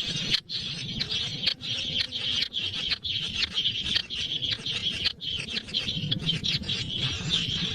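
A bird chick calling in a fast, nearly unbroken run of high-pitched chirps.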